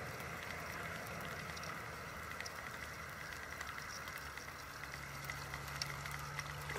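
Spinning reel being cranked steadily, its gears and rotor giving a quiet whir with fine ticking as the feeder line is wound in with a fish on.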